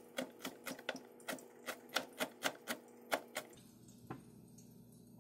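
Chef's knife rapidly chopping celery leaves on a plastic cutting board: an even run of sharp knocks, about four a second, that stops about three and a half seconds in, followed by one more chop.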